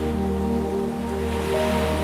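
Slow, calm instrumental music of long held notes over the steady wash of ocean waves. A new higher note comes in near the end.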